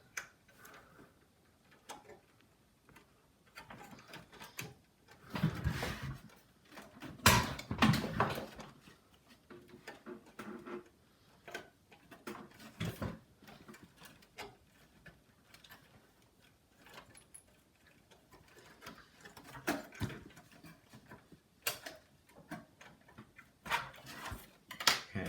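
Scattered clicks, knocks and rustles of computer hardware being handled, with the loudest handling noises about five to eight seconds in and again near the end.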